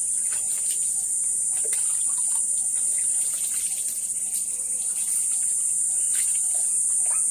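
A steady, high-pitched insect chorus, with a few faint splashes of water poured from a plastic mug over a small child.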